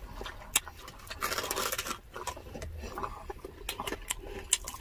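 Close-miked eating sounds: chewing and biting into crispy pata (deep-fried pork leg), with many short mouth clicks and smacks and a louder noisy stretch about a second and a half in.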